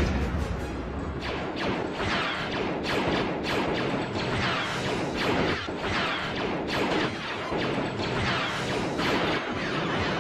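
Blaster fire in a gun battle: many sharp laser-gun zaps, a few a second, each sweeping down in pitch, exchanged back and forth.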